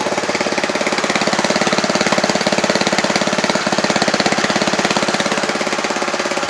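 Honda GX160 single-cylinder four-stroke petrol engine running slowly, at about 1000 rpm on an adjusted governor, with an even firing beat. It drives a DC dynamo that is feeding a 200-watt lamp through an inverter.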